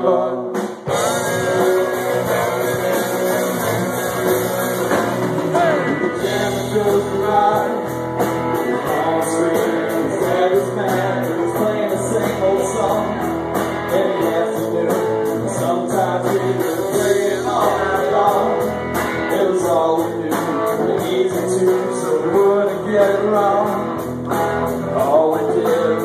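Live rock band playing a song with a male lead singer: electric guitar, electric bass, drum kit and djembe.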